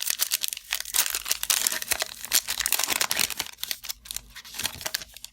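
Wrapper of a Panini Absolute Football trading card pack being torn open and crinkled by hand, a dense run of crackling that thins out near the end.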